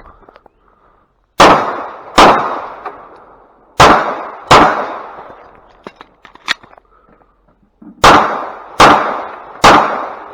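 Glock 45 9mm pistol firing a USPSA stage: two quick pairs of shots, then a pause of about three seconds with a few faint clicks, then three shots in quick succession. Each shot is loud and rings out briefly.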